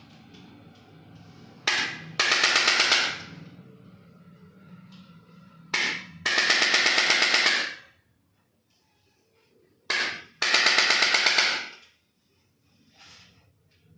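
Electric chiropractic adjusting gun firing three bursts of rapid taps, about a dozen a second, each lasting a little over a second and about four seconds apart. A brief short burst comes just before each one.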